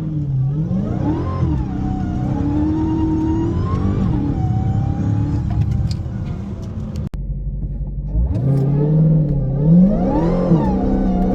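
Stock-exhaust Dodge Hellcat's supercharged 6.2-litre V8 accelerating, its pitch climbing and dropping back at each upshift. The sound cuts off abruptly about seven seconds in, then a second run starts low and climbs the same way.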